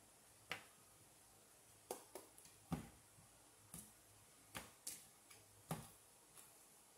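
Tarot cards being handled and laid on a table: about ten quiet, sharp clicks and taps at irregular spacing, the loudest near the middle and toward the end.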